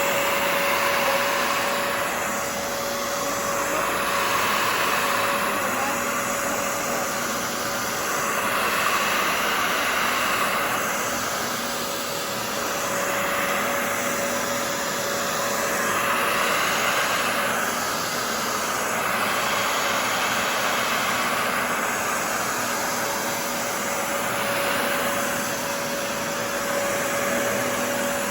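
Shark CarpetXpert upright carpet cleaner running, with a steady motor whine under the rush of its suction. The sound swells and eases every two to three seconds as the machine is pushed and pulled over the carpet.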